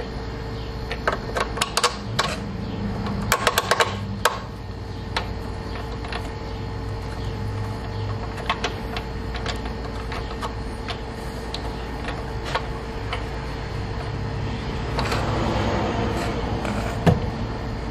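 Light metallic clicks and taps of hand tools and bolt hardware as a Ford Freestyle lower control arm's mounting bolt is fitted by hand, with a quick run of clicks about three to four seconds in. A steady hum runs underneath.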